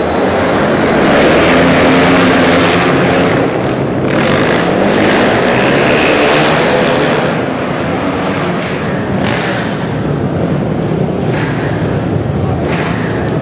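Flat-track racing motorcycles running hard on a dirt oval, several engines at once, their revs rising and falling as the bikes power through the turns and down the straights.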